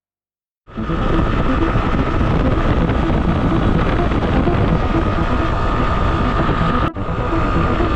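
Rieju Aventura 125 motorcycle's single-cylinder four-stroke engine running steadily while riding, cutting in abruptly just under a second in and dropping out for an instant near the end.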